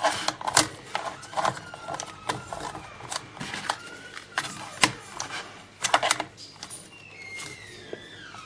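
A knife blade prying at the plastic memory-bay cover of an Asus Eee PC 1015B netbook: irregular sharp plastic clicks and taps, with a few faint thin squeals as the blade scrapes the plastic. The cover is stuck and hard to get off.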